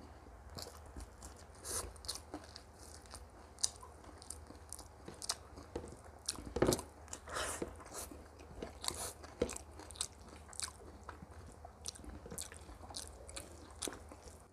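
Close-up chewing and biting of food, with frequent short, irregular crunches and mouth clicks, the loudest about halfway through, over a low steady hum.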